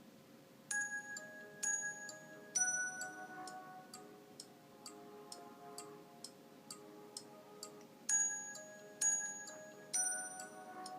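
Nokia 6500 Slide message alert tone played through the phone's loudspeaker: a short three-note chime phrase, a steady ticking of about two to three clicks a second, then the same three-note phrase again near the end.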